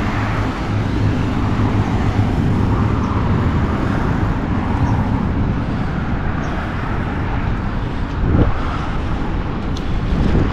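Highway traffic: cars passing one after another in a steady rumble, with a louder pass about eight seconds in.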